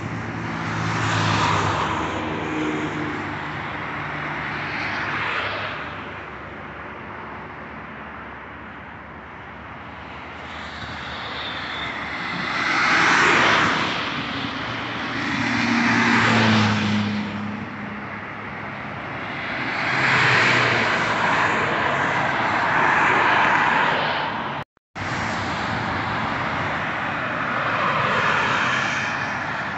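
Highway traffic passing one vehicle after another: tyre and engine noise swells and fades several times, with the low engine note of heavy diesel trucks or buses under some passes. The sound drops out briefly near the end at a cut.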